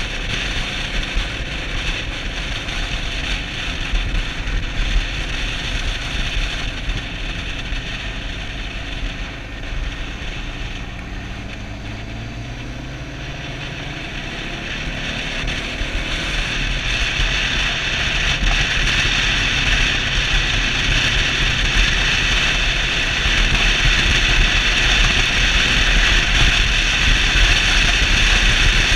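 Suzuki DR650's single-cylinder four-stroke engine running at speed, with a steady rush of wind on the microphone. About ten seconds in the engine eases off, then its pitch climbs as the bike accelerates, and the wind grows louder toward the end.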